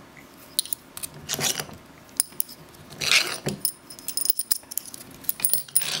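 Long steel machine screws being drawn out of a linear actuator's metal housing and clinking against each other in the hand: scattered light metallic clicks and jingles, several of them ringing briefly.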